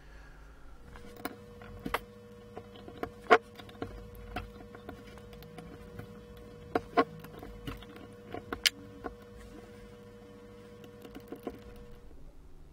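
Scattered small metal clicks and taps as an Allen key works the bolts of a machined aluminium optical block and its photomultiplier tube housing is handled and set down, with a few sharper knocks among them.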